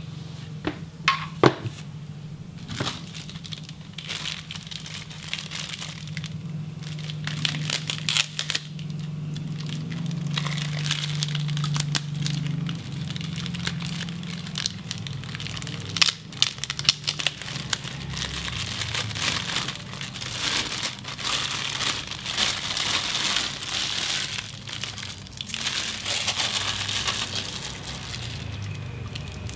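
Thin plastic bag crinkling and rustling as a monitor cable packed inside it is handled and turned over, with scattered sharp clicks from the plastic adapter and plugs, the strongest ones in the first few seconds.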